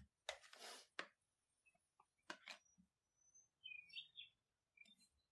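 Faint scraping and soft slaps as a yeast dough is gathered with a plastic bench scraper and worked by hand on a stone countertop, the longest scrape about half a second in. A few faint, short high chirps come about four seconds in.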